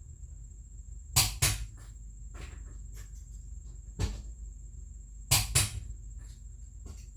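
Click-type torque wrench breaking over as wheel lug nuts reach the set 90 foot-pounds: sharp double clicks about a second in and again after five seconds, with a single click near four seconds. A steady low hum runs underneath.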